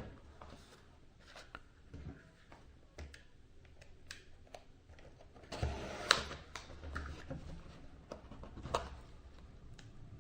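Cardboard product box and packaging being handled and opened by hand: scattered light clicks, taps and rustles, with a louder flurry of handling a little past the middle and another sharp knock later on.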